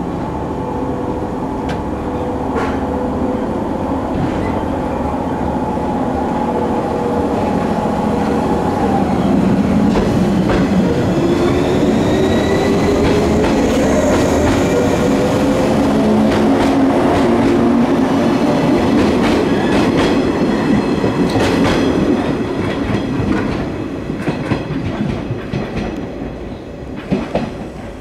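JR 115 series electric multiple unit pulling away from a station. Its traction motors hum and rise in pitch as it gathers speed past the listener, with the wheels clacking over rail joints, and the sound fades as the train draws away over the last few seconds.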